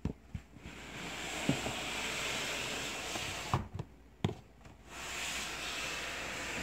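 Clear plastic tub scraping as it slides in a reptile rack, a steady rushing scrape in two long stretches, with a few sharp plastic knocks in between.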